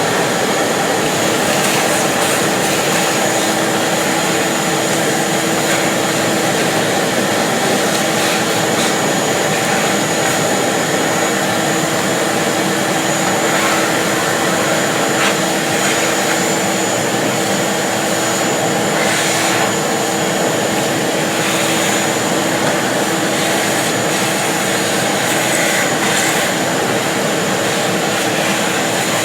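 Vacuum cleaner running steadily with a constant whine, sucking packed grass and debris out of a compact tractor's radiator and oil cooler fins.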